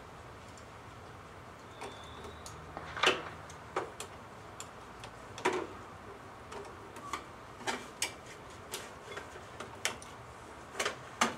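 Hand tools and parts being handled around a car's engine bay, making a dozen or so sharp, irregular clicks and clacks that start about two seconds in.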